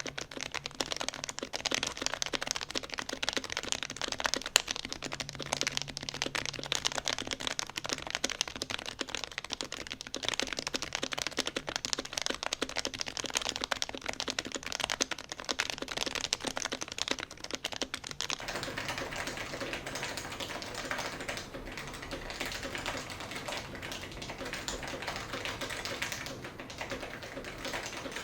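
Continuous typing on a custom keyboard with lubed Topre electro-capacitive switches, an aluminium plate and blank keycaps: a dense run of key strokes. About two-thirds of the way through, the strokes become denser and more even.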